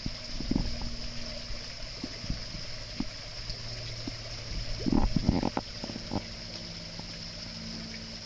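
Koi sucking and slurping at the water surface as they feed from a hand, with small splashes and sloshing; the loudest burst of splashing comes about five seconds in. A low steady hum runs underneath.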